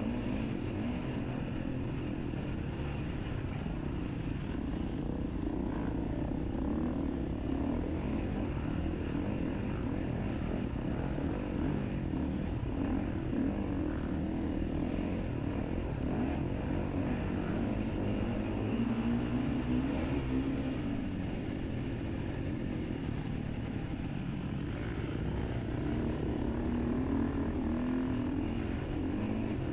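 Enduro motorcycle engine running steadily, with the pitch rising and falling a couple of times as the throttle is worked.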